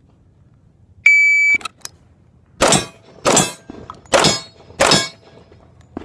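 A half-second electronic beep, then four pistol shots fired in quick succession, a little under a second apart, each with a short ringing decay.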